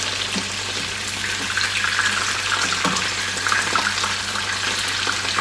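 Batter-coated chicken pieces sizzling steadily in hot oil in a frying pan, with a few light clicks of a spatula turning them in the pan.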